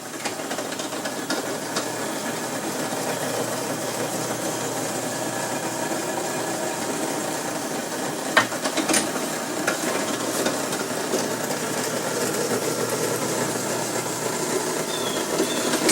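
Electric drill running steadily while boring wheel holes into a small wooden toy car, with a few sharp clicks about halfway through.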